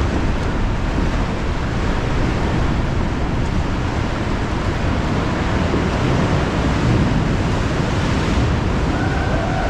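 Steady rush of sea waves and surf, with wind on the microphone.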